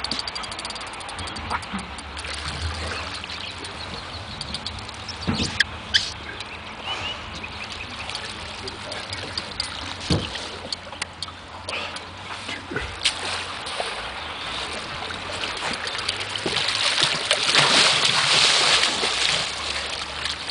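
Water sloshing and splashing against a boat's side as a large wels catfish thrashes at the surface while being landed by hand, with a few knocks on the hull. The splashing grows louder about seventeen seconds in as the fish is grabbed.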